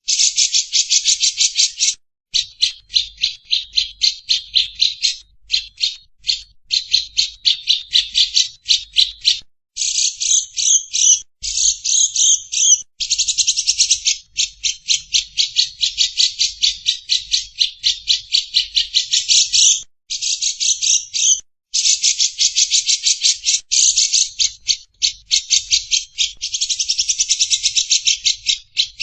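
Lovebird 'ngekek': long runs of rapid, shrill chattering notes, roughly ten a second, broken by a few brief pauses.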